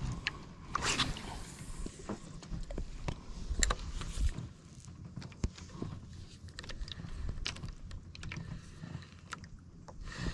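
Close handling noise on the microphone: a sleeve and hands rubbing against the camera, with irregular small clicks and scrapes as hands work the line and a spinning reel, over an uneven low rumble.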